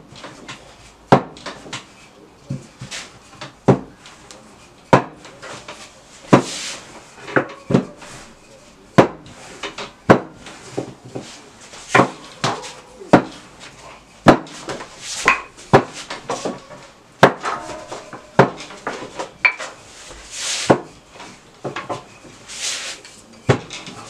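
A wooden rolling pin rolling out thin pizza dough on a kitchen table, with many sharp knocks at irregular intervals as the pin bumps and is pressed down, and a few brief rubbing hisses as it slides over the floured dough.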